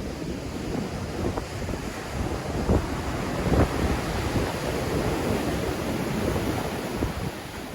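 Black Sea surf breaking on the shore in strong wind, with wind buffeting the microphone. Brief heavier thumps come about a second and a half, two and three quarter, and three and a half seconds in.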